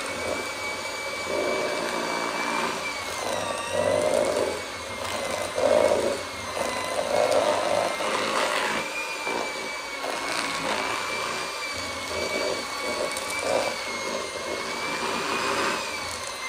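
Electric mixer running steadily in a bowl of cookie dough, its motor whine dipping in pitch briefly a few times as the beaters meet resistance, with an uneven churning of the beaters through the dough.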